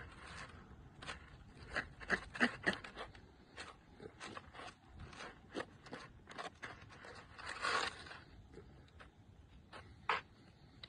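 Gloved hands scraping and rubbing a gutted trout on snow, making irregular short scrapes. A longer scrape comes about three-quarters of the way in, and a sharp click comes near the end.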